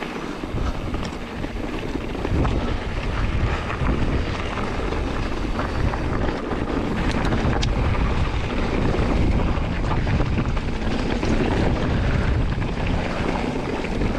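Wind buffeting the microphone as a mountain bike rolls over a dirt trail: a steady rushing rumble, with tyre noise and a few sharp rattles and clicks from the bike.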